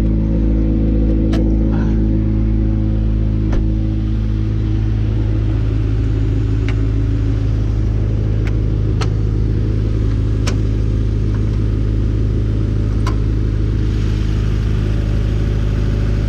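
Subaru WRX's turbocharged flat-four engine running steadily, a deep even rumble, with a few short sharp clicks scattered through.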